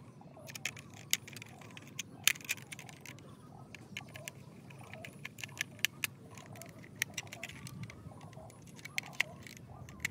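Irregular small clicks and taps of a screwdriver and hard toy parts being handled while a metal-and-plastic toy truck is screwed together.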